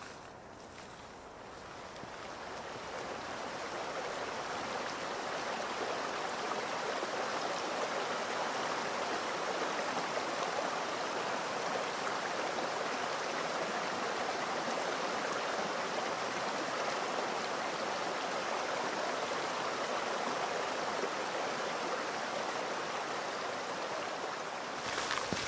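Small rocky stream rushing and splashing over stones and little cascades, a steady rush of water that grows louder over the first few seconds and then holds.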